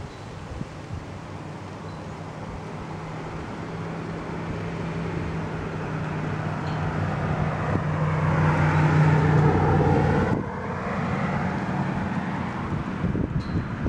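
A motor vehicle on the street, its engine hum and road noise growing steadily louder for about ten seconds, then dropping off suddenly. Wind buffets the microphone.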